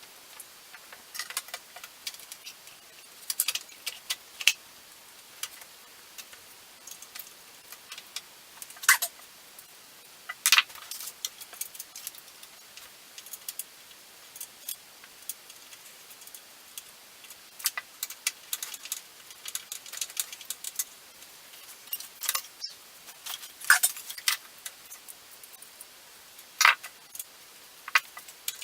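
Scattered clicks, taps and light metallic clinks of PC hardware being handled, as parts of a computer case and a graphics card are worked on by hand. Some clicks are much sharper than the rest, at about 9 and 10 seconds in and again near the end, over a faint steady hiss.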